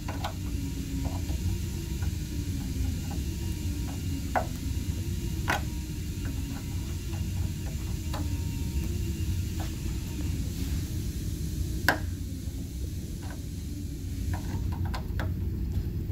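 Pliers rolling up and peeling the leftover strip of an old steel door skin off the door shell's folded seam: scattered sharp metal clicks and ticks, a few louder ones about four, five and a half and twelve seconds in and a quick run near the end, over a steady low shop hum.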